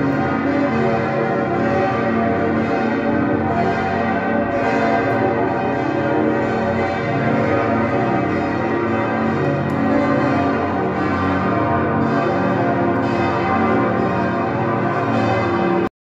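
Several church bells ringing together in a continuous peal, many overlapping tones at different pitches, loud and steady.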